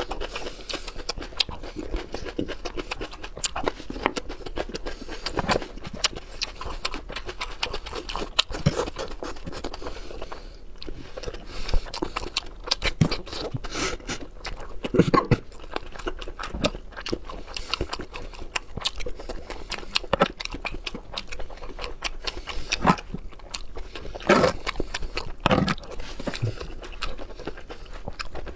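Close-miked eating: biting into and chewing raw red bell pepper, soft slices and cherry tomatoes, with many short wet mouth clicks and a few louder bites about halfway through and again near the end.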